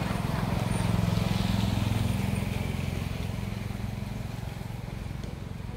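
A motor vehicle engine passing by, its low drone growing louder to a peak a second or two in and then slowly fading away.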